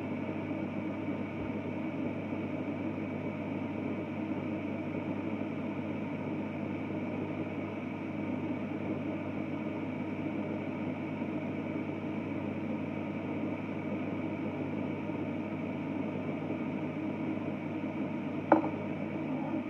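Bullet-style personal blender running steadily, its motor blending a fruit-juice smoothie in the locked-on cup. A single sharp click comes shortly before the motor shuts off.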